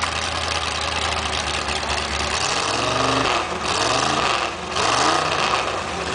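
A vehicle engine running steadily, then revving up and down several times from about two seconds in, with loud rushing noise at each peak.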